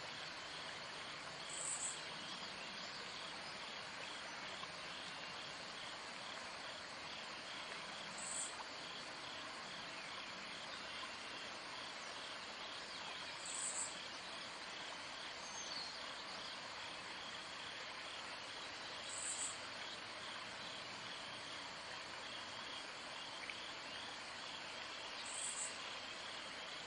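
Outdoor insect chorus: a steady high trilling hiss, with a short, high, louder call about every six seconds.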